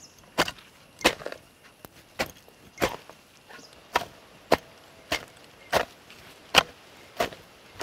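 Metal hoe blade chopping into hard red soil: about a dozen sharp strikes at a steady working pace, roughly one every two-thirds of a second.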